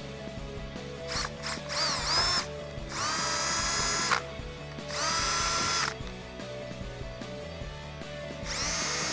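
Handheld power drill with a small 1/8-inch bit drilling pilot holes through a car's trunk lid: a few short trigger blips, then three runs of about a second each, the motor whine rising as it spins up each time. Background music plays underneath.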